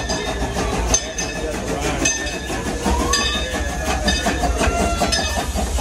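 Narrow-gauge steam locomotive No. 14 of the Frisco Silver Dollar Line rolling slowly into the station with its passenger cars: a steady rumble with clattering wheels and knocks roughly once a second, and a few brief squeals.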